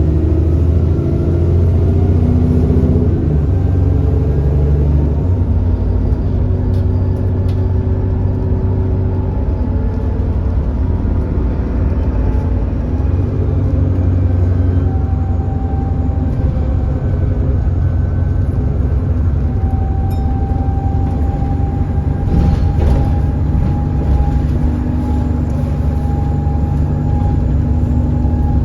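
The 6.7-litre Cummins ISB diesel of an Alexander Dennis Enviro400 bus running under way, on an engine with an exhaust leak. Its pitch drops in the first few seconds, then rises and falls with speed. A thin steady whine joins it from about halfway through.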